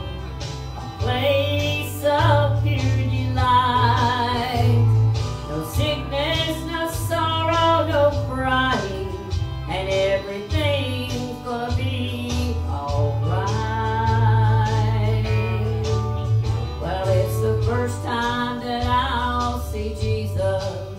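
A woman singing a country gospel song into a microphone over instrumental accompaniment with guitar.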